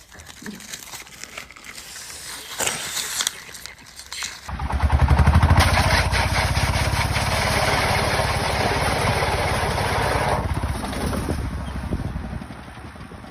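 Faint handling noises, then about four and a half seconds in a motor-driven machine starts abruptly and runs with a rapid, even pulsing. It fades away over the last few seconds.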